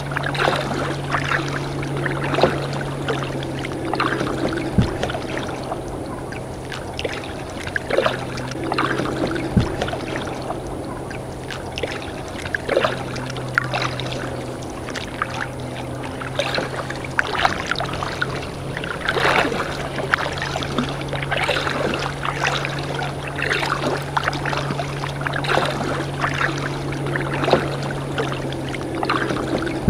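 Kayak paddle strokes: water splashing and dripping off the blades every second or two, over a steady low hum.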